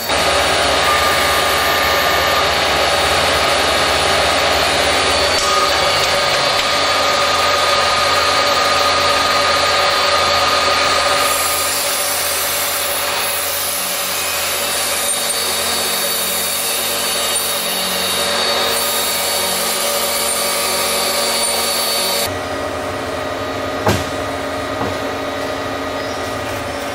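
Large CNC vertical lathe turning a big steel ring: a steady machining noise of the cutting tool on the rotating workpiece, with a faint constant whine over the shop hum. The sound changes character about 11 and 22 seconds in, and there is a single short knock a little after that.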